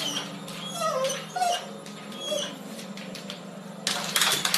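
A household pet giving a few short cries that glide in pitch, amid repeated knocks and clatter.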